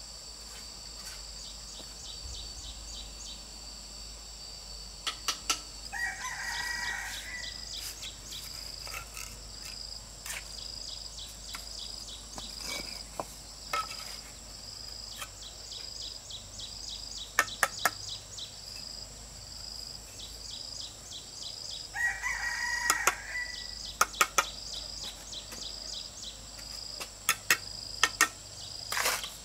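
A rooster crowing twice, about six seconds in and again about twenty-two seconds in, over a steady high insect drone with a pulsing chirp. Sharp clicks and knocks come at intervals and are the loudest sounds.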